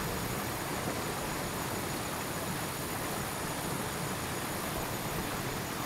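Steady outdoor background noise: an even hiss with no distinct sounds in it.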